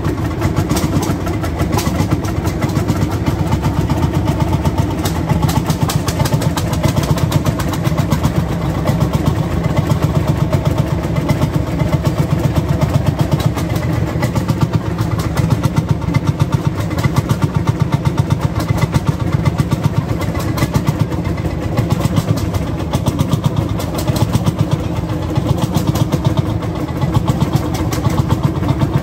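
Single-cylinder hot-bulb two-stroke engine of a vintage Landini tractor idling with a steady, even thumping beat.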